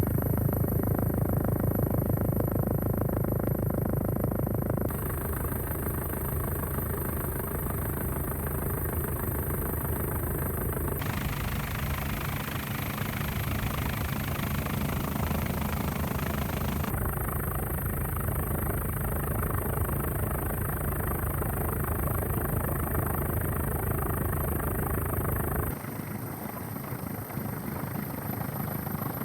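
Helicopter flying overhead: a steady low engine and rotor hum with a rhythmic blade chop and a thin high whine. The sound shifts abruptly several times, like cuts between shots.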